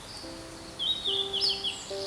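Blue-and-white flycatcher singing a short phrase of quick, down-slurred high whistles ending on a higher note, about a second in, over soft background music.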